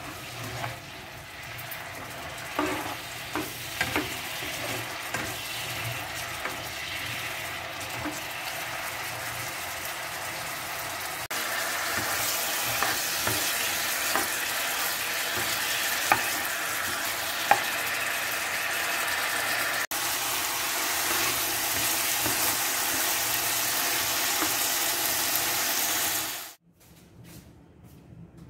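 Bite-sized chicken pieces sizzling in soy-sauce glaze in a non-stick frying pan as they are stirred, with the tongs clicking and scraping against the pan now and then. The sizzle gets louder partway through and stops abruptly near the end.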